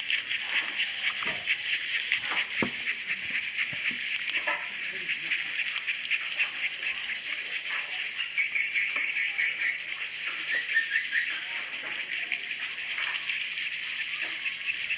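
A colony of edible-nest swiftlets twittering in a swiftlet house: a dense, continuous chatter of rapid high chirps, the swiftlet roosting call (suara inap).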